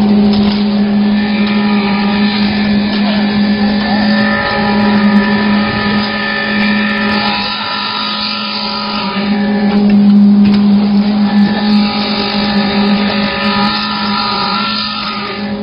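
A concrete mixer pump running steadily: a constant machine hum with overtones, dipping a little about eight seconds in and swelling about ten seconds in.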